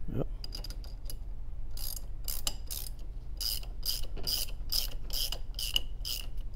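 Metal wrench clicking against a hose fitting as a stainless male quick-disconnect is tightened into a brass ball valve. It makes a run of short, sharp metallic clicks, about three a second, starting about two seconds in.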